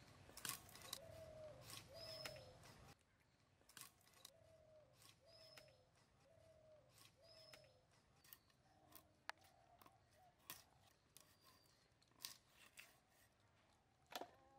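Faint clicks and scrapes of pangas fish being cut on a boti, a curved blade fixed upright on a wooden block. A bird calls over and over in the background, a short call about once a second.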